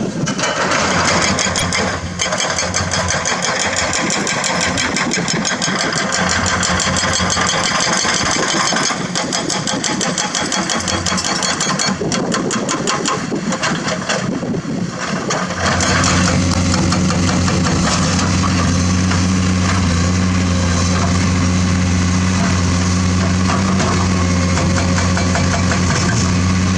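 Komatsu hydraulic excavator's diesel engine running. It is uneven and noisy at first, then about two-thirds of the way through it settles into a steadier, louder, low drone.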